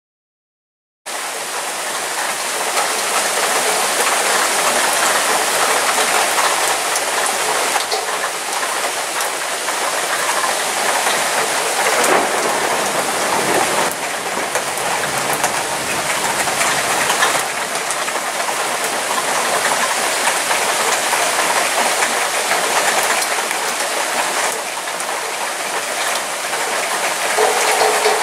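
Heavy downpour: a steady, dense hiss of rain falling, starting about a second in after a brief silence.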